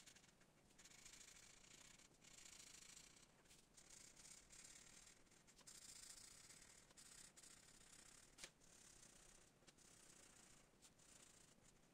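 Faint scratching of a felt-tip marker scrubbing back and forth on paper while colouring in, in stretches of a second or so with short pauses between strokes.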